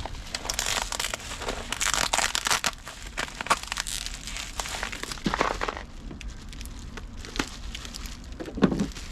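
Product packaging being handled and worked open: irregular crinkling and rustling with sharp clicks, and a thump near the end.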